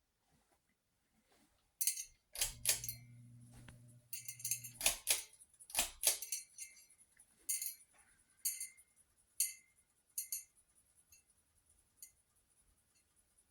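Metal pull chain of a Hunter ceiling fan jangling and clinking as it is pulled and swings, a series of sharp jangles about a second apart that fade to light ticks near the end.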